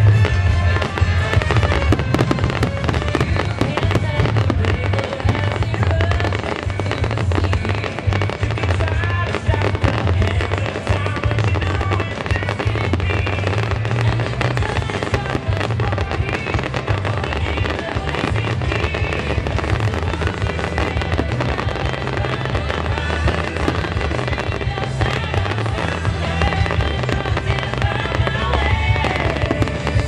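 Aerial fireworks display going off continuously: a dense run of booming shell bursts and crackling, with no let-up. Music for the show plays underneath.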